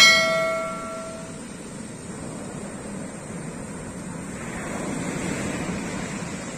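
A bright bell-like notification chime rings once at the start and fades over about a second and a half. It is the sound effect of a subscribe-button animation. Behind it and after it, ocean surf breaks on the beach, swelling a few seconds in.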